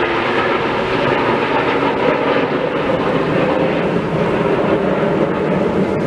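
Jet engines of the Snowbirds' CT-114 Tutor formation flying overhead: a steady, loud jet noise that does not rise or fall.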